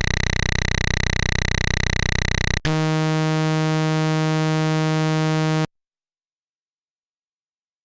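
Harsh synthesized electronic buzz tones used as a glitch or error effect. First comes a rapidly pulsing, overtone-rich buzz for about three seconds, then a lower steady buzzing drone for about three seconds that cuts off suddenly.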